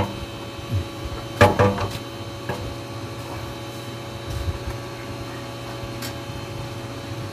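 Fuel tank of a Sumo SR150 gasoline engine being set and shifted onto the engine: a quick cluster of knocks and clatters about a second and a half in, then a lighter knock a second later, over a steady background hum.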